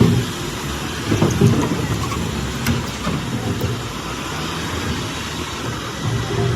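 Heavy diesel machinery running: a low rumble that surges unevenly, with a few sharp knocks.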